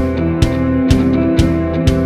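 Background music: a song with guitar and a steady beat of about two strokes a second.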